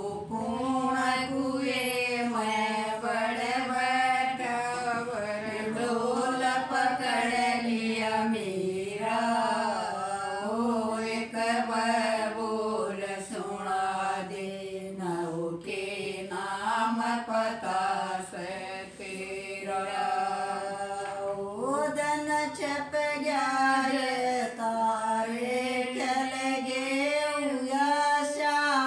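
Women singing a jakdi, a Haryanvi folk song, together and unaccompanied, in a slow chant-like melody of long held and gliding notes. A new, louder phrase begins with a rise in pitch a little over two-thirds of the way through.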